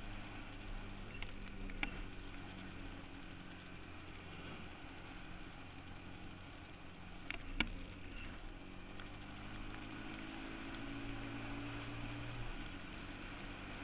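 Suzuki Quad Runner 160 ATV's single-cylinder four-stroke engine running steadily, its note rising slightly about ten seconds in. Two sharp knocks, a small one about two seconds in and a louder one near the middle.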